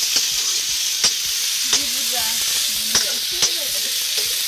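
Food frying and sizzling in an aluminium kadai over a wood fire, a steady hiss with sharp pops about once or twice a second.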